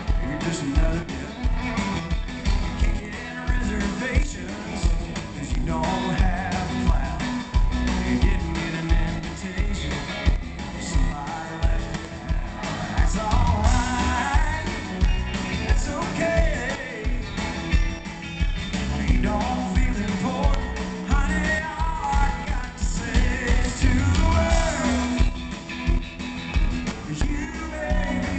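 A live country-rock band plays with electric guitars, keyboards and drums under a male lead vocal, over a steady drum beat. It is heard from the audience at an arena concert.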